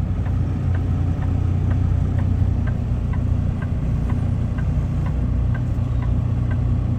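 Kenworth semi truck's diesel engine idling steadily, with a light ticking about twice a second.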